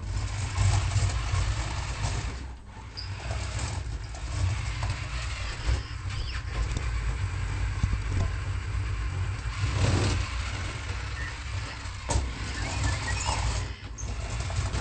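A voice-command toy R2-D2 robot's electric drive motors whirring steadily as it turns around and rolls across the floor, obeying a "turn around" command.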